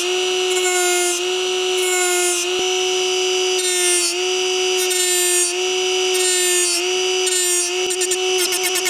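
Milwaukee cordless right-angle die grinder running at high speed with a steady whine, its small disc grinding the steel blades of a mower attachment to sharpen them. The pitch dips a little each time the disc bites, with repeated bursts of grinding hiss, and near the end the contact turns to a fast chatter.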